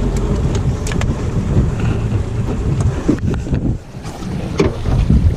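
Wind rumbling on the microphone in an open fishing boat, with a few short sharp knocks.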